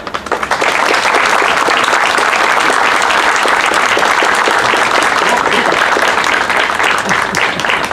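Audience applauding: many people clapping at once, building up within the first second and then holding steady.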